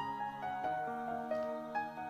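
Background music only: a soft instrumental melody of held notes that change every half second or so.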